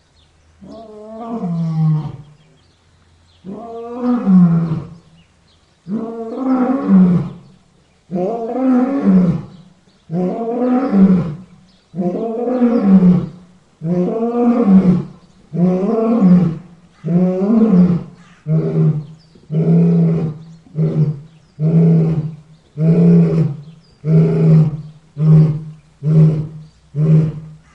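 A lion roaring in a bout: long, loud roars about two seconds apart, which from about two-thirds of the way through turn into shorter grunts coming about once a second.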